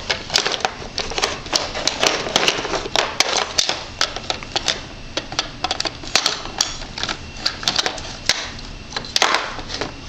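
Hollow plastic stacking cubes clattering against each other and a high chair's plastic tray as a toddler handles and nests them: an irregular run of quick clicks and taps, with a tight cluster about nine seconds in.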